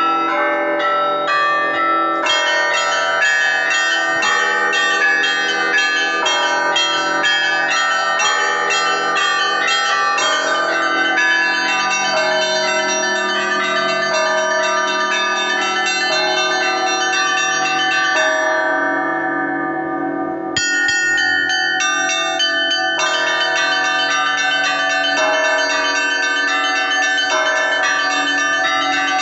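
Russian Orthodox church bells in a liturgical peal: a rapid, dense run of strikes on several bells of different pitches, ringing into one another. About two-thirds of the way through, the strikes stop for about two seconds while the bells ring on, then start again.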